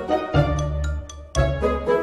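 Background music: a deep bass note about once a second under short, bright ringing notes.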